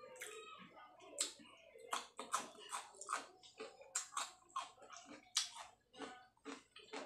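Raw cucumber slices being bitten and chewed close to the microphone: a run of sharp, crisp crunches and wet mouth clicks, about two a second.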